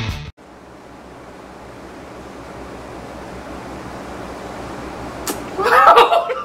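Rock music cuts off suddenly, leaving steady room hiss with a faint low hum. Near the end, a click and then a short, loud burst of a person's laughter.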